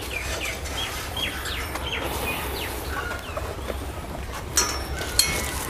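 Small birds chirping in many short, quick notes over a low steady rumble, with two sharp clicks near the end.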